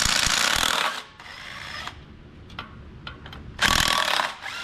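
Power wrench running in two short bursts, the first about a second long and the second shorter near the end, undoing the bolts that hold the clutch to an Allis Chalmers Model D engine.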